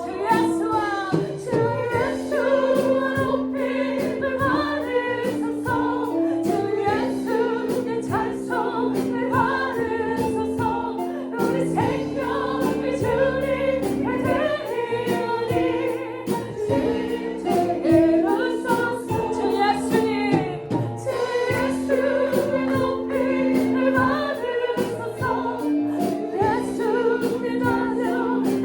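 Choir singing a worship song over instrumental accompaniment with a steady percussion beat.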